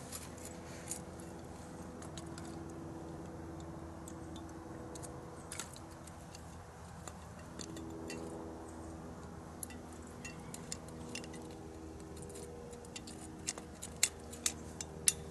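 Light metallic clicks and clinks from stove parts being handled and fitted together, sparse at first and sharper and more frequent near the end, over a faint steady hum.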